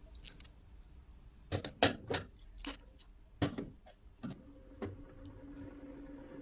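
Pieces of pork and whole spices such as cinnamon stick dropped one by one into an empty stainless-steel pot, about seven separate knocks and clinks on the metal bottom.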